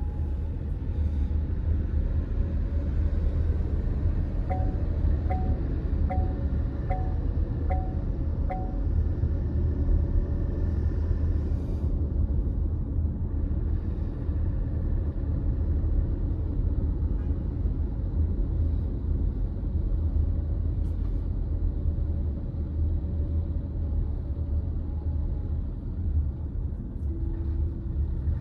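A car driving, with a steady low rumble of engine and road noise. About four seconds in, a short chime beeps six times, evenly spaced, then stops.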